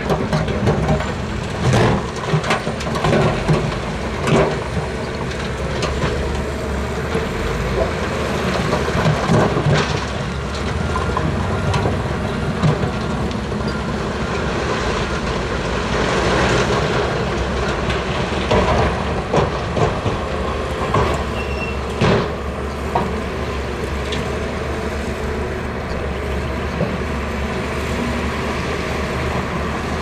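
Heavy earthmoving machinery working: a steady low engine rumble with repeated irregular metal clanks and knocks over it.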